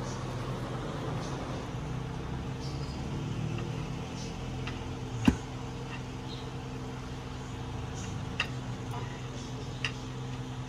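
Steady low electrical hum, with one sharp click about five seconds in and two lighter clicks later on.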